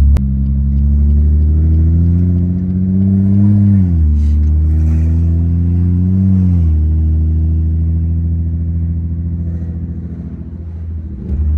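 Car engine idling and revved lightly twice, its pitch climbing slowly and dropping back quickly each time, then settling to a steady idle.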